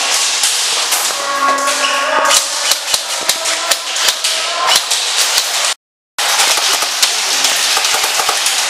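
Airsoft guns firing in rapid, irregular volleys of sharp cracks, with BBs striking around. The sound drops out briefly about six seconds in.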